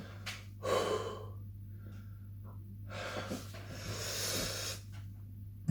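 A man breathing heavily in and out, a short breath about a second in and a long breath out a few seconds later, as he cools a mouth burning from extremely hot chili.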